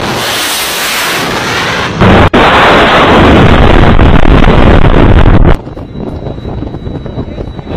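Ship-launched missiles firing from a warship: a loud rushing blast of rocket exhaust, then a second, louder launch about two seconds in. It cuts off suddenly a little after five seconds, leaving wind on the microphone.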